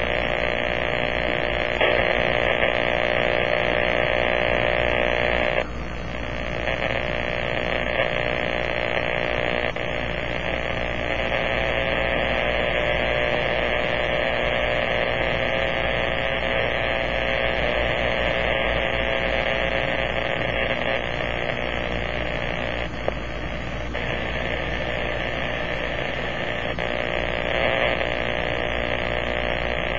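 Powerline interference buzzing steadily from a Kenwood transceiver's speaker in AM mode as it is tuned down from 50 MHz through the 49 and 46 MHz range, dropping briefly twice as the frequency changes. The uploader takes it for noise from a damaged lightning arrester on a power pole, or something like it.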